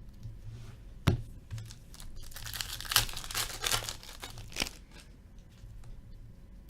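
Trading-card pack wrapper crinkling and tearing as it is ripped open and handled, after a sharp tap about a second in.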